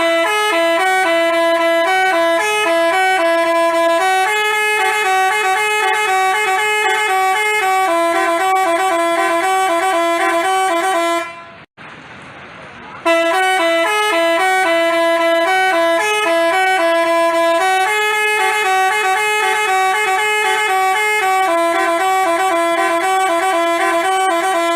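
Basuri telolet bus horn playing a quick stepping melody, several horn tones sounding together. It stops about 11 seconds in and starts the tune again after a short pause.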